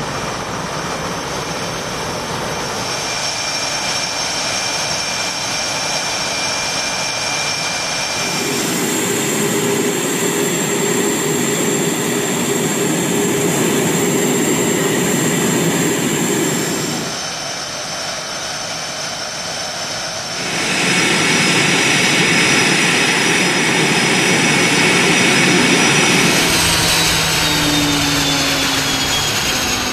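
F/A-18 Hornet jet engines running on a flightline: rushing exhaust noise with a high, steady turbine whine. The sound changes abruptly in level and pitch several times.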